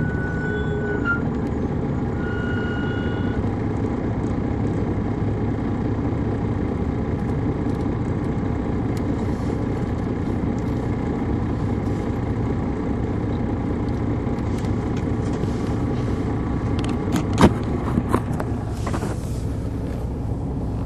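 Inside a 2002 MCI D4000 coach, its Detroit Diesel Series 60 diesel engine running steadily under a broad road rumble. A high steady beep sounds twice in the first few seconds. Near the end comes a sharp knock, then a short hiss.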